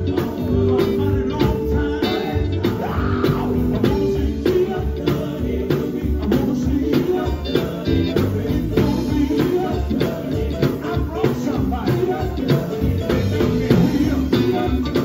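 Live gospel band playing an upbeat number with a steady beat: electric guitar and drum kit, with voices singing.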